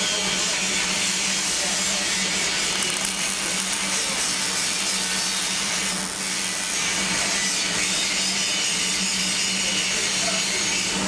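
Welding-shop work noise: a steady hiss with fine crackle over a low, steady hum.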